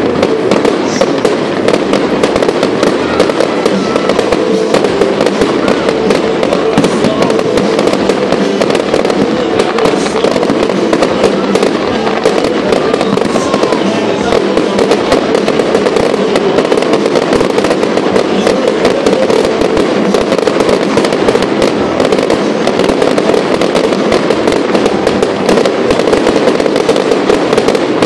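Fireworks exploding in a dense, unbroken run of crackles and bangs.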